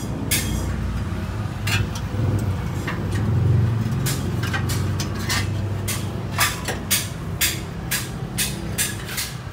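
Steady low engine rumble with sharp clicks or taps over it, a few scattered at first, then coming regularly about twice a second in the second half.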